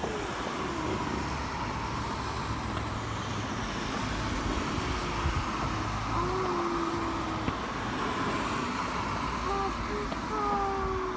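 Steady outdoor rumble with several distant calls that rise and fall in pitch, a few clustered near the end, and one faint sharp crack about seven and a half seconds in.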